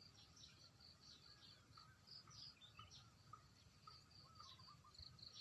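Faint, continuous chirping and twittering of small birds: many short, irregular calls.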